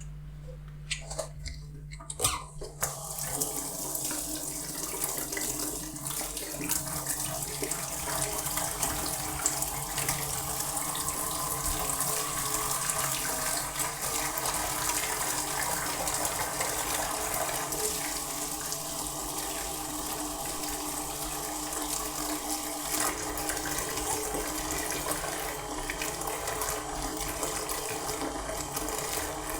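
A few light clicks and knocks, then a kitchen tap turned on about two and a half seconds in, running steadily into the sink during dishwashing.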